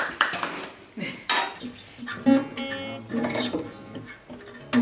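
Acoustic guitar music with plucked and strummed notes, alongside a few sharp clinks of dishes and cutlery.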